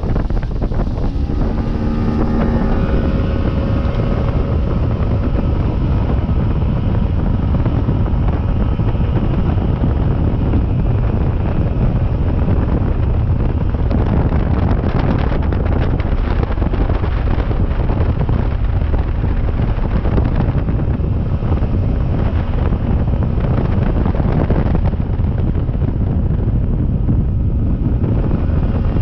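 Bass boat running flat out at about 32 mph: steady outboard motor noise under heavy wind buffeting on the microphone.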